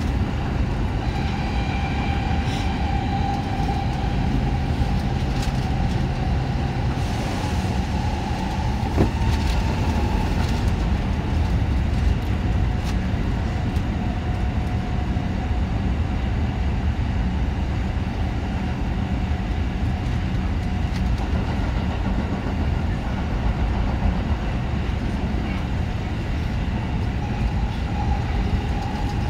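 Osaka Metro Chuo Line subway train running through a tunnel, heard from inside the front car: a steady low rumble of wheels on rail. A faint whine rides over it for the first ten seconds or so, and there is a single sharp click about nine seconds in.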